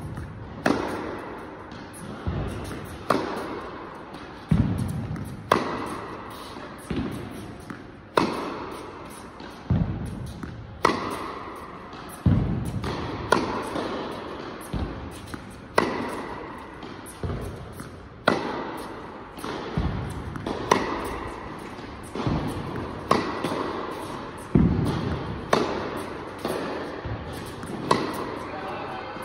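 Tennis ball being struck by racquets and bouncing on an indoor court in a steady rally: a sharp hit about every second and a quarter, each ringing in the hall's echo.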